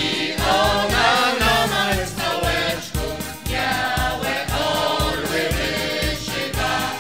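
Choir singing a song over instrumental backing with a steady beat.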